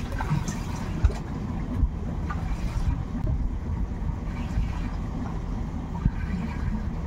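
Steady low rumble on board a small boat at sea, with a sharp knock about a second in and another about six seconds in.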